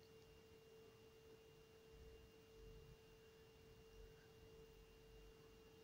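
Near silence: room tone with a faint, steady single-pitch tone.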